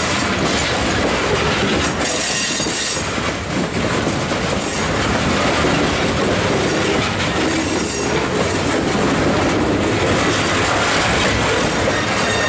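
Loaded steel hopper cars of a rock train rolling past close by through a curved wye. The wheels squeal against the rail, and the trucks click over the rail joints.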